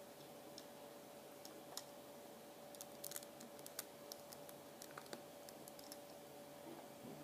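Faint, scattered clicks and light taps of small LEGO plastic pieces being handled and pressed together, over a steady faint hum.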